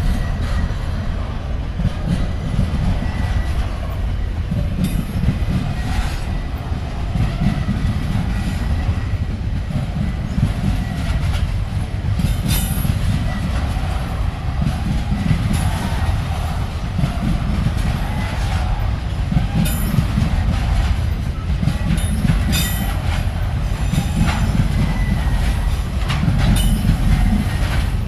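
A train's wagons rolling past, a steady low rumble with scattered sharp clicks from the wheels over the rail joints and a faint thin squeal from the wheels.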